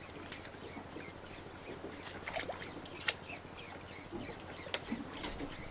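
Low, steady hum of the fishing boat's engine under scattered small clicks and short chirp-like sounds.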